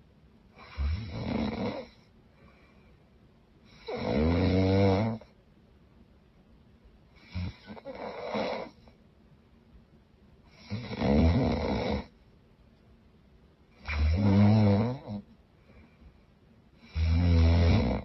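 A woman snoring loudly: six long, rasping snores, one about every three seconds, with quiet breathing between them.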